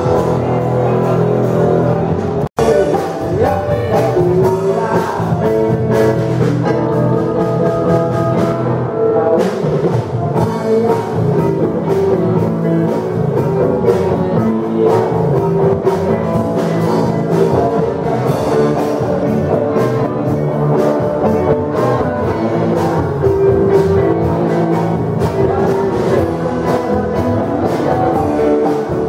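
Live band music played loud through a PA: electric guitar, bass guitar and drum kit, with a man singing into a microphone. The sound cuts out for an instant about two and a half seconds in.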